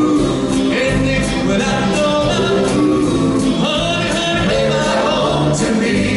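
Doo-wop vocal group singing in harmony over a live backing band with a steady drum beat.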